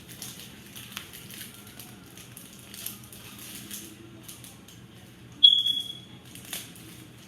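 Soft, repeated rustling and crinkling of card-pack wrappers and cards being handled. About five seconds in, one short, high-pitched electronic beep rings out, the loudest sound, and fades within a second.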